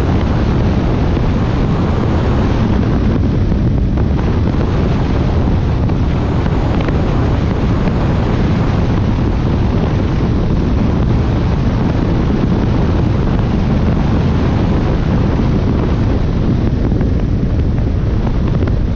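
Wind rushing hard over the microphone on the deck of a bass boat running across the lake at speed, with the boat's running noise underneath. The noise is loud and steady, with no let-up.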